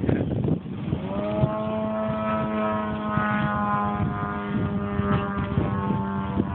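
Brushless electric motor and propeller of a foam RC plane whining as the throttle comes up: the pitch rises about a second in, then holds a steady tone and sags slightly near the end.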